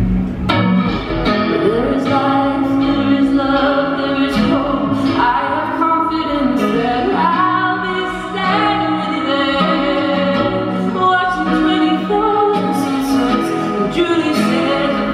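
A live band playing a song, with sung vocals over guitar.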